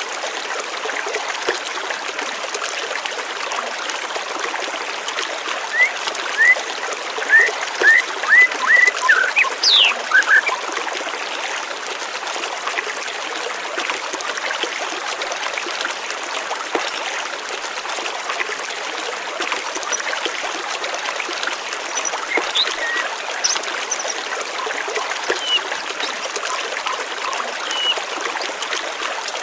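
Steady rush of flowing stream water, with birds chirping over it: a run of short rising chirps about a quarter of the way in, then only scattered single chirps.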